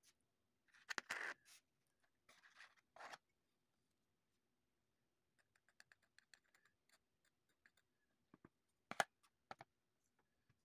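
Faint handling sounds from a metal spoon heaping baking soda onto a coin on a tabletop: a few brief scrapes in the first three seconds, then a run of light ticks from about five and a half seconds. A sharper click comes about nine seconds in.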